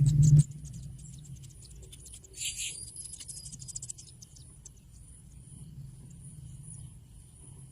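Insects trilling steadily and faintly at a high pitch, with one short bird call about two and a half seconds in. A louder low hum cuts off suddenly within the first half-second.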